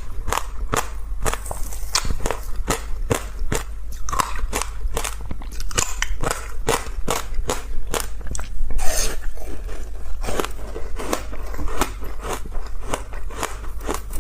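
Crunchy ice being bitten and chewed close to the microphone: rapid crisp crunches, several a second, with a louder, denser burst of crunching about nine seconds in.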